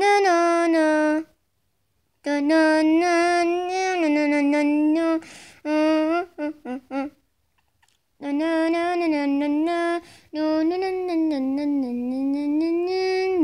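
A single high voice humming a tune unaccompanied, in long held phrases broken by short pauses.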